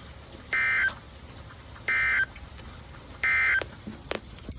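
NOAA Weather Radio SAME end-of-message code sent three times: three short squawks of two-tone digital data about a second apart, marking the end of the severe thunderstorm warning. Faint radio hiss lies between them, with a couple of clicks near the end.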